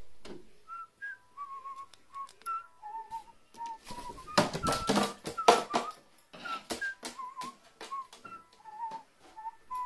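Short, wavering whistled notes, repeated throughout. About four seconds in comes a loud flurry of sharp flaps and clatter lasting a couple of seconds as a carrion crow takes wing.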